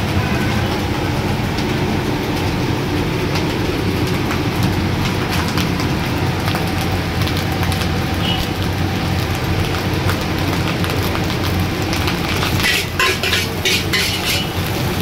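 Steel spatula scraping and stirring fried rice across a large iron wok, over a steady low rumble. The scraping clicks get sharper and busier near the end.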